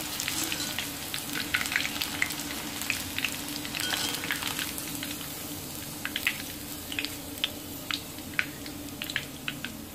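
Batter-coated ivy gourd slices deep-frying in hot oil: a subdued, steady sizzle broken by scattered sharp crackles and pops. The sizzle has come down and the bubbling is light, the sign that the moisture has cooked out and the pieces are crisp and ready to come out of the oil.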